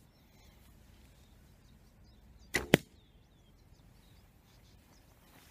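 A shot from an SAS Tactical Survival Bow fitted without its pivot pin screws: the string snaps forward on release, and about a fifth of a second later comes a sharper, louder smack, the arrow striking the target. Faint bird chirps sound in the background.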